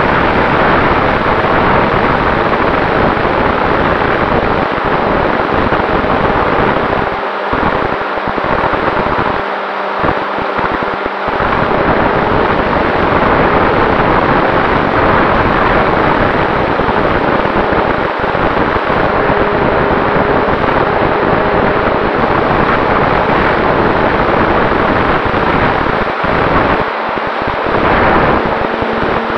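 Propeller and motor of a radio-controlled model airplane in flight, heard from on board as a steady loud rush with wind buffeting the microphone and a faint steady tone underneath. The low buffeting rumble drops out briefly a few times, around a third of the way in and again near the end.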